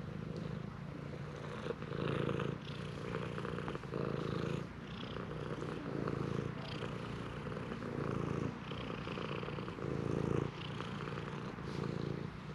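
Stray cat purring steadily while being stroked, close up, the purr swelling and easing about once a second.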